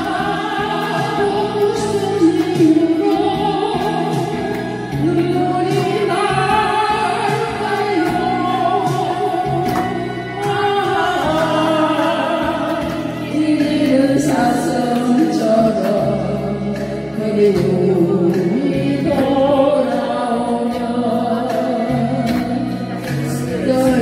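Two women singing a Korean ballad together, one through a handheld microphone, over an instrumental backing track.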